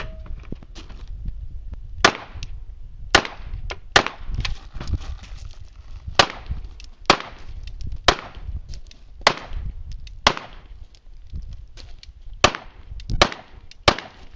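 About eleven 9 mm Glock 17 pistol shots fired at a slow, deliberate pace, roughly a second apart, with a couple of longer pauses between groups. Each report is sharp and has a short echoing tail.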